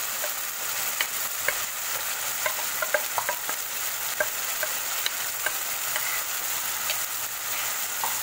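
Marinated chicken sizzling as it hits hot ghee and masala in a kadai, with a steel spoon scraping and clicking against the bowl and pan as it is scraped in and stirred: a steady hiss with scattered sharp ticks.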